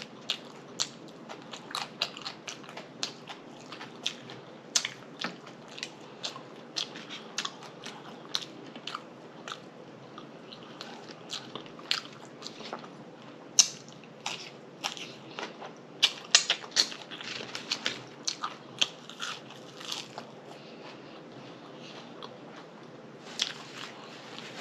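Close-miked chewing and lip smacking: many short, sharp wet mouth clicks at an uneven pace, growing denser near the end.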